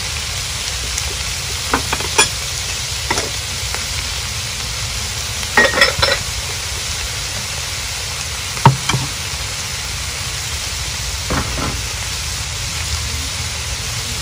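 Small whole shrimp sizzling in a metal wok with a steady frying hiss as a metal ladle stirs them. The ladle gives a few sharp clinks and scrapes against the wok, loudest a little before and a little after the middle.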